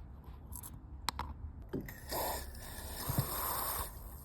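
A couple of light clicks, then a scraping hiss lasting about two seconds, from handling a Yamaha SR400 cylinder head during a parts-cleaner valve leak test.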